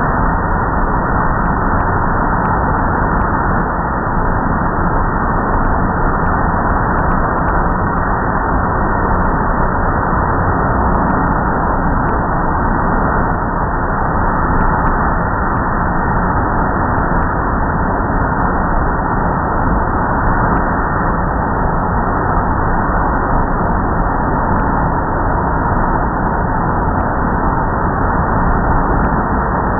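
Car wash air dryer blowers running: a loud, steady rush of air.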